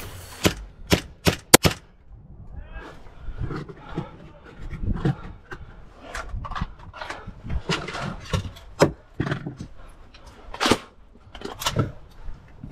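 Airsoft gun firing about five sharp shots in quick succession within the first two seconds, followed by irregular scuffs and clicks.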